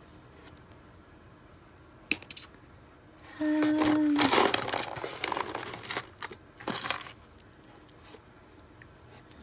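Small metal jewelry pieces clinking and rattling against each other and scraping on the bottom of a cardboard box as a hand rummages through them. A sharp click comes about two seconds in, the rattling is loudest for a couple of seconds around the middle, and a shorter rattle follows near seven seconds.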